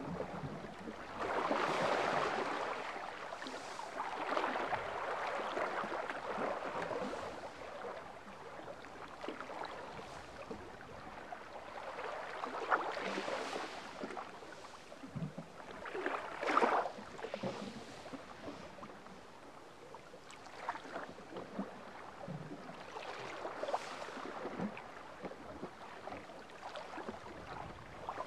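Small waves lapping and sloshing against a rock at the waterline of a calm sea. They come in irregular surges, with a few small splashes.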